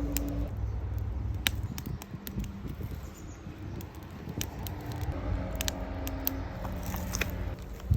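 Wood fire crackling, with scattered sharp pops and clicks over a low steady hum.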